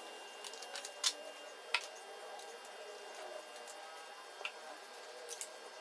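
Scattered light clicks and taps of a motorcycle's plastic cover and fittings being handled and pushed back into place, a few sharp ticks standing out over a faint steady background.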